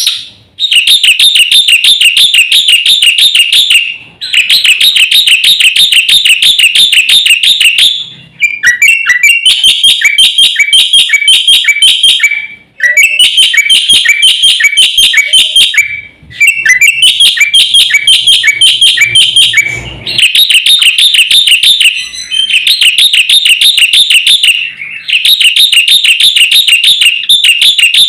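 Bird-training master recording of a black-winged myna (jalak putih) singing: rapid, evenly repeated high chirps, roughly eight a second, in loud phrases of a few seconds with short breaks between them.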